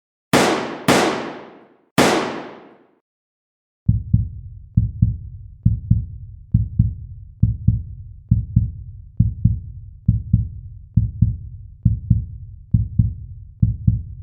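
Two sudden loud impact hits, each fading away over about a second, then a heartbeat sound effect: low double thumps, lub-dub, about once a second for the last ten seconds.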